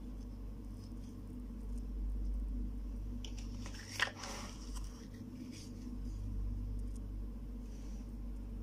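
Hard plastic toy-kitchen pieces clicking and knocking as they are handled and set down, with one sharp click about four seconds in, over a steady low hum.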